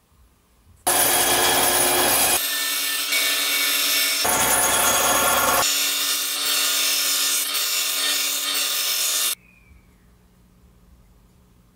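Benchtop band saw running and cutting through a small wooden board. It starts suddenly about a second in and stops suddenly near the end, with two stretches of fuller, harsher cutting noise between stretches of steadier machine hum.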